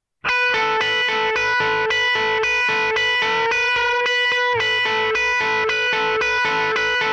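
Song intro on an electric guitar through effects: a held chord re-struck in an even pulse of about four strokes a second, starting suddenly right at the beginning, with no singing.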